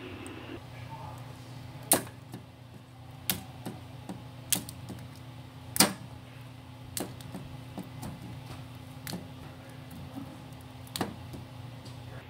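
Plastic wrestling action figures knocking and clacking against each other and the toy ring as they are handled: a string of sharp clicks, about one a second, over a faint steady hum.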